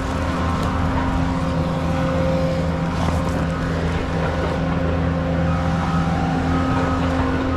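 Engine running steadily: a constant low drone with several fixed tones over it.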